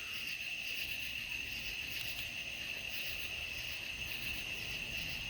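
Steady chorus of night-singing insects: a continuous high trill with a faster pulsing shimmer above it.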